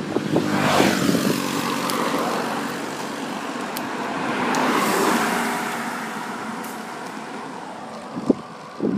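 Motor vehicles passing a cyclist on a mountain road: engine and tyre noise swells up and fades away, twice, with a falling pitch as one goes by. A couple of short knocks near the end.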